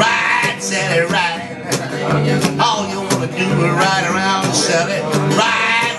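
Acoustic guitar strummed in a steady rhythm, with a man's voice singing over it at several points.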